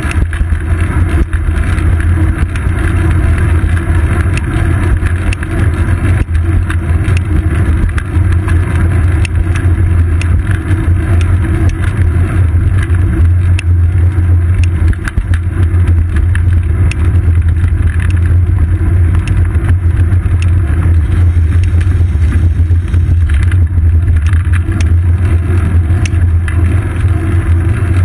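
Steady, loud low rumble of wind buffeting and road vibration picked up by a seat-post-mounted GoPro Hero 2 as the bicycle rolls along a paved road, with scattered small clicks.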